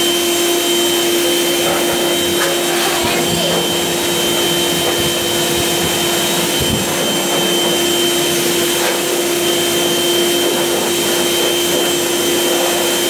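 Handheld blow dryer running steadily on a wet dog's coat: an even rush of air with a constant hum and a high whine.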